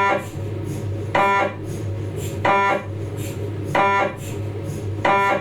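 Philips 1.5 T MRI scanner's gradient coils running a 3D T2-weighted sagittal spine sequence: a loud, pitched buzzing beep repeating about every 1.3 s, five times, over a steady low hum.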